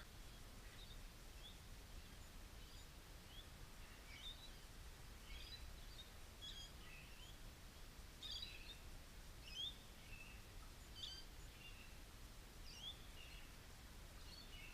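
Faint bird chirps, short high calls coming every second or so, over a low steady outdoor background rumble.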